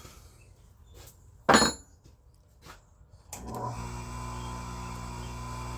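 Workbench handling noises: a few light clicks and one loud knock about 1.5 s in, as something is set down. About 3.3 s in a steady hum begins and keeps going.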